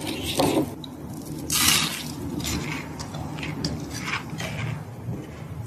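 Crispy fried chicken being dipped into a creamy sauce, then bitten and chewed close to the microphone: a run of irregular crisp crunches, the loudest about a second and a half in.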